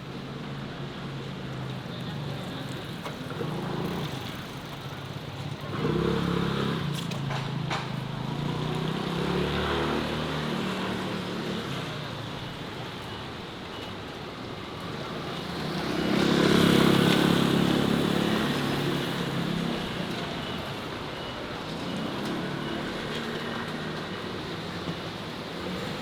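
City road traffic: motor vehicles passing one after another, each swelling and fading, the loudest going by about two-thirds of the way through.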